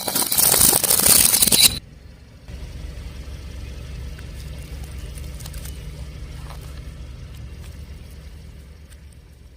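A car tyre rolling over and crushing something crunchy: a loud crackling crunch for nearly two seconds that cuts off sharply. After a brief pause comes the car's engine and tyres, a steady low rumble with a few faint ticks.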